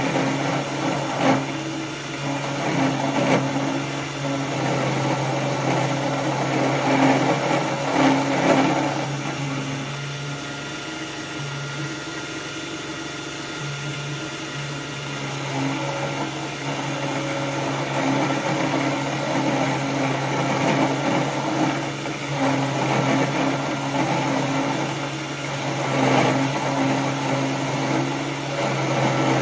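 A cheap 775 DC motor spindle running a 10 mm end mill by belt as it mills metal, with a steady motor hum under rough cutting noise. The cutting swells and eases as the cutter is fed in, loudest about seven to nine seconds in and again near the end.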